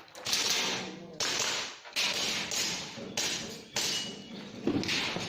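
A string of about six sharp cracks or impacts, roughly one a second, each trailing off within half a second.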